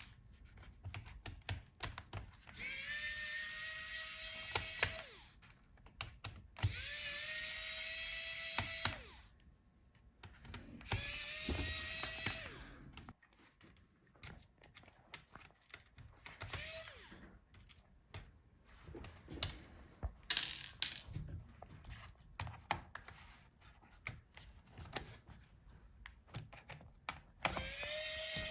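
Small electric screwdriver backing screws out of a laptop motherboard. It runs in several spells of two to three seconds, each a steady whine that rises as the motor spins up, with light clicks and taps of screws and tools in between.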